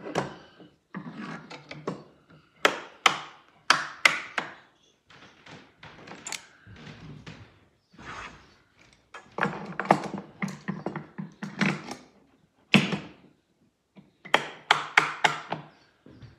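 Clamps being fitted and tightened to hold an aluminium router template on a perforated workbench: clusters of sharp clicks, clacks and knocks of metal on metal, with a quick run of clicks near the end.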